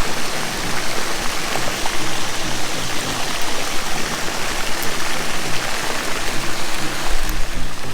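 Background music with a low bass line of short, changing held notes, over a loud, steady hiss like rushing water.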